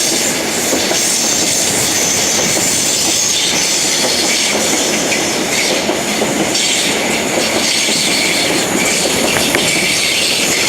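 Greater Anglia push-pull express of Mark 3 coaches, led by a Driving Van Trailer and propelled by a Class 90 electric locomotive, passing through at speed. A steady, loud rush of wheel and air noise runs throughout, with wheels clacking over rail joints.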